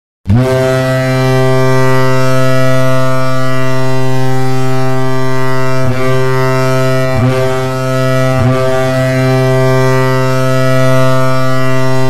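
The Colorado Avalanche's hockey goal horn sounding one long, loud, steady blast, a deep ship-like horn tone with three brief wavers near the middle.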